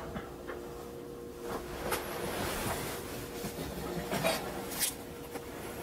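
A steady hum with two faint tones. Over it come a few light knocks and cloth rustling as a metal roasting pan on the oven rack is taken hold of with a towel, the clearest about four and five seconds in.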